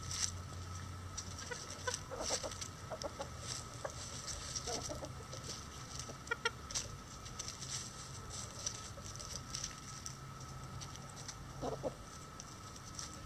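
Bantam chickens, a lavender Old English Game rooster and a Mille Fleur d'Uccle hen, clucking softly a few times, with scattered light clicks as they peck.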